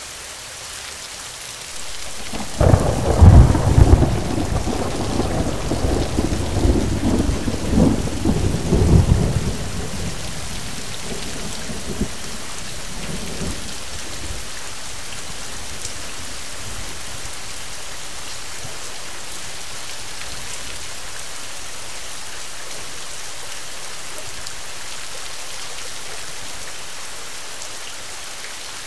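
Thunderstorm: steady rain with a loud peal of thunder about two and a half seconds in, rumbling on for some seven seconds and dying away, then rain alone.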